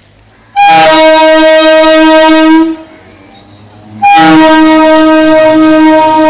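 Horn of an Indian Railways EMU local train: two long blasts, the first about two seconds long, the second starting about four seconds in and still sounding at the end. Each blast opens with a short higher note before settling on its main pitch.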